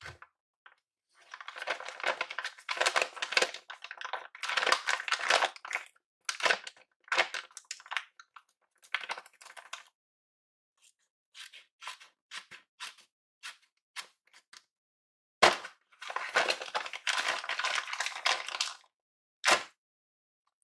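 Paper crinkling and rustling as a hand-drawn paper blind bag is handled, in long stretches at the start and near the end. In between come short, separate snips of scissors cutting along the top edge of the paper, and a sharp tap shortly before the second stretch of crinkling.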